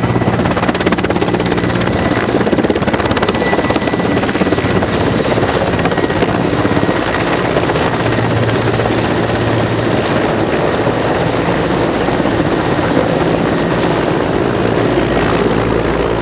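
Mi-8 helicopter flying close by at low altitude: the fast, even beat of its main rotor over a steady high whine from its twin turboshaft engines.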